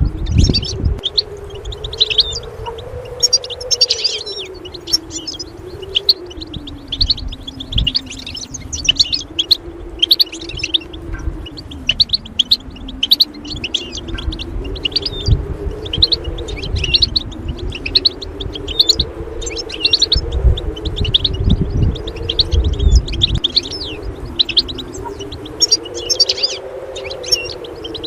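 European goldfinch twittering: a fast, continuous run of short high chirps and trills. Beneath it runs a low, slowly wavering musical drone, with a few low thuds.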